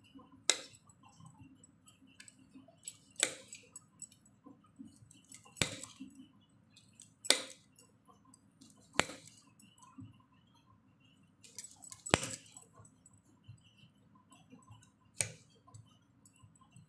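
Kitchen knife slicing bitter gourd into long thin strips on a bare stone countertop, the blade clicking sharply against the stone about eight times at uneven intervals of one to three seconds.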